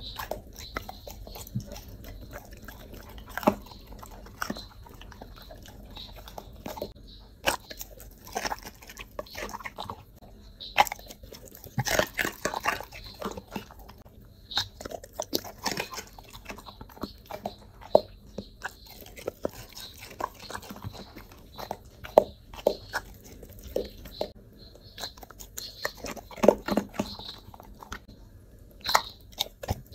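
A dog biting and chewing crunchy vegetable pieces, carrot and cucumber, in irregular crunches with busier runs of chewing about a third of the way in and again near the end.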